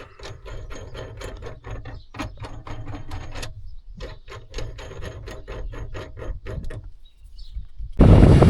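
Ratchet wrench clicking fast in two runs with a short pause between, sharp metallic ticks.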